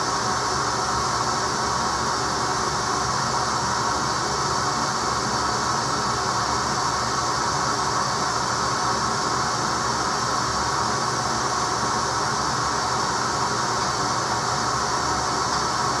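Vacuum cleaner running steadily, used to suck lint out of a gas dryer: a loud, even noise with no change.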